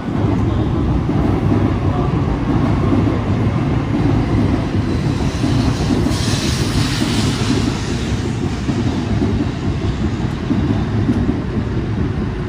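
Tokaido Shinkansen Nozomi bullet train pulling into the station alongside the platform: a loud, steady rumble of the cars rolling past, with a hissing rush that swells about five seconds in and fades a few seconds later.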